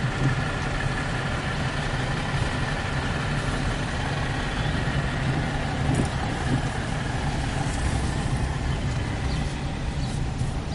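A car driving slowly, heard from inside the cabin: a steady low hum of engine and tyres.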